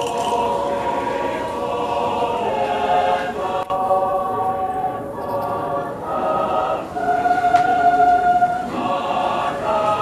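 Mixed choir of women and men singing in harmony, moving through sustained chords; a long held chord swells to its loudest about seven seconds in.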